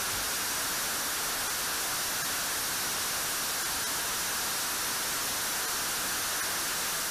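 Jet engine running at high power on a test stand inside a hush house: a steady, even rush of noise, mostly hiss, with no change in pitch or level.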